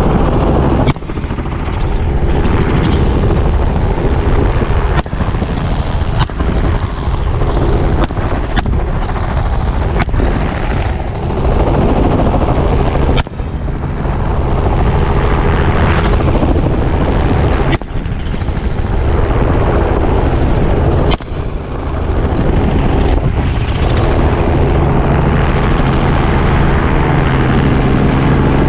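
Helicopter rotor and turbine noise, loud and steady, from aboard an open-door helicopter. About nine sharp gunshots ring out at irregular intervals through it.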